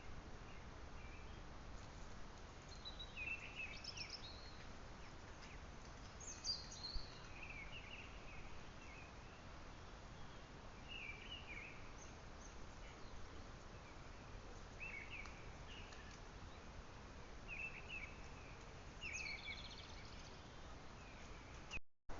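Small birds chirping and calling every second or two over the steady hiss of a trail camera's microphone. The sound cuts out briefly near the end.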